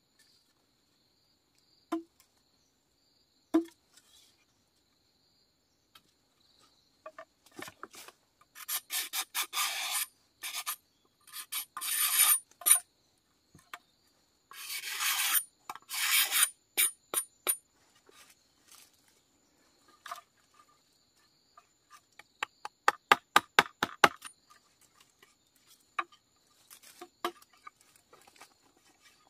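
A couple of single knocks, then a machete blade scraping along a green bamboo tube in several long rasping passes. Near the end come quick runs of light, sharp taps of the blade on the bamboo.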